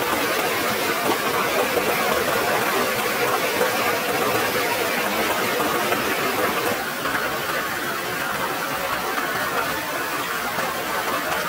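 Small forest stream running over a rocky cascade: a steady rush of water.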